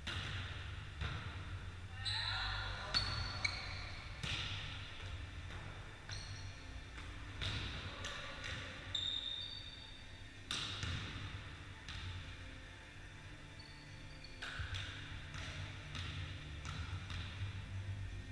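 A volleyball being struck during play, sharp slaps every second or two that echo around a large sports hall, with brief squeaks of shoes on the wooden floor.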